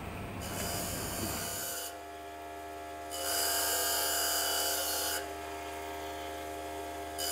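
A steady hiss for the first second or two, then an electric opal-grinding lapidary machine humming steadily; for about two seconds in the middle the opal is pressed to the spinning wheel, adding a loud hissing grind.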